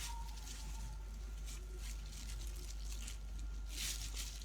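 Soft, repeated rustling strokes of hair being worked through as hair dye is applied, over a steady low hum.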